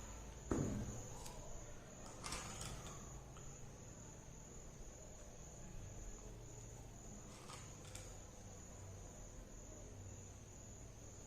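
A cricket trilling faintly and steadily, one unbroken high note. A few soft taps and clicks as peppercorns and tape are handled.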